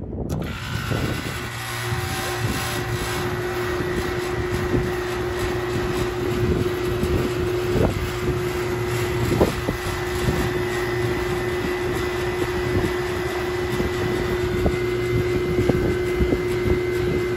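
2004 Carrier rooftop condensing unit starting suddenly and running, its contactor held in by hand, on a new dual run capacitor. The compressor and condenser fan run with a steady hum that sets in about a second after the start. The suction line is coming back cold, so the compressor is pumping.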